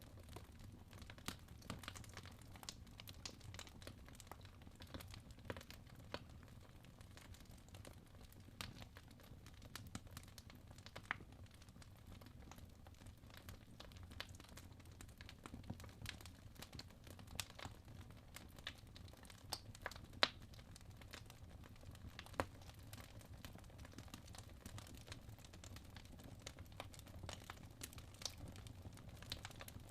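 Wood fire in a fireplace crackling: irregular sharp pops and snaps over a soft low rumble of the burning logs, with one louder pop about twenty seconds in.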